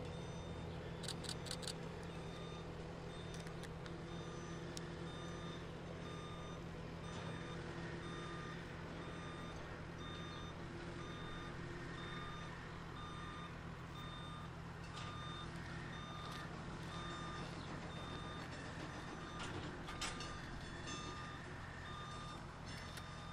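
Bobcat skid-steer loader's diesel engine running steadily while its backup alarm beeps at an even pace as the loader moves a railroad flatcar. A few sharp clanks come through, about a second in and again near the end.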